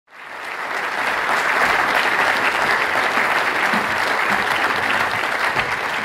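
Audience applauding: a dense, steady clatter of many hands clapping that swells over the first second.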